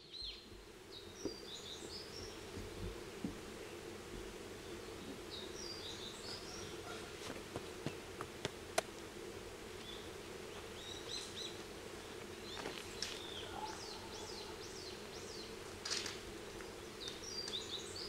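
Outdoor nature ambience: birds chirping in scattered short clusters of high notes, one run of quick falling notes in the second half, over a steady low hum. A single sharp click about halfway through.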